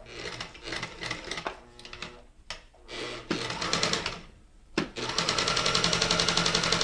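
Early-1970s Kenmore 158.10302 mechanical sewing machine stitching a multi-stitch zigzag: quieter, uneven mechanical sounds at first, a sharp click just before five seconds in, then the machine running at a steady speed with a fast, even needle rhythm.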